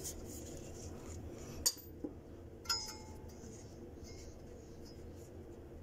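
Metal hand tools clinking as the loosened number-8 spark plug is worked out from below: a sharp click a bit over 1.5 s in and a clink about 3 s in that rings briefly, over a faint low hum.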